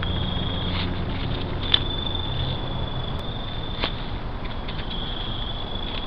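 Trail-camera sound at night: a steady hiss with a constant high-pitched whine, and a few sharp clicks, the loudest just before two seconds in and another near four seconds. A low hum sits under the first couple of seconds.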